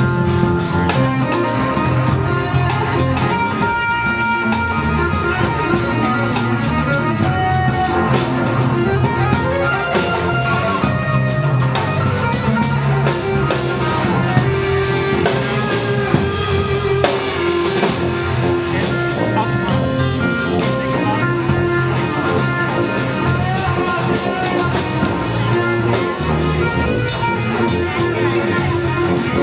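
Live jazz trio playing: plucked guitar lines over bass notes and a drum kit with busy cymbals.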